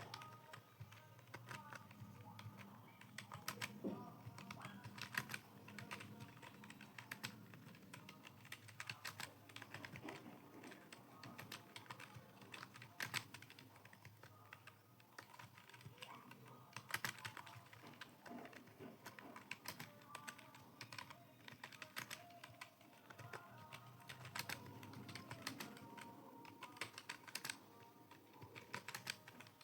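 Computer keyboard being typed on: a quick, uneven run of soft key clicks.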